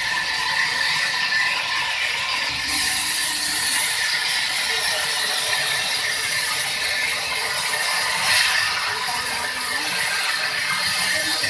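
Sawmill saw running and cutting wood, a steady mechanical rasp and hiss; the high hiss grows louder a little under three seconds in.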